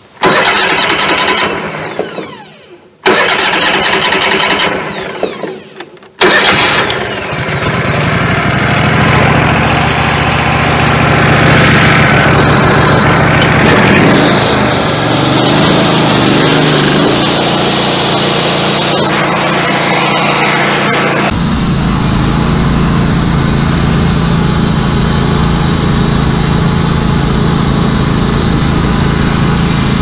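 Wood-Mizer LT15 Go sawmill's gasoline engine being restarted after running out of fuel: it bursts into life and dies away twice, about three seconds apart, then catches on the third try about six seconds in and keeps running. About 21 seconds in its sound changes to a steadier, deeper running.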